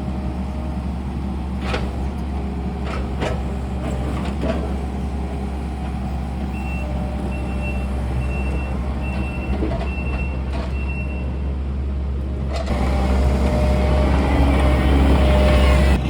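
Heavy equipment unloading logs: a large engine runs steadily, with a few knocks in the first seconds, a backup alarm beeping about seven times at an even pace partway through, and the engine getting louder, working harder, for the last few seconds.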